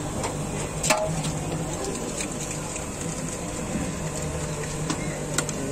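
Metal spoon scraping and clinking against steel pots while puffed rice is scooped and spiced chickpeas are ladled, with a few sharp clinks, the loudest about a second in. A steady low hum runs underneath.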